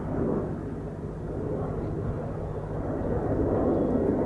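Distant Airbus A330neo's Rolls-Royce Trent 7000 turbofan engines running on the runway, a steady low rumble that swells slightly near the end.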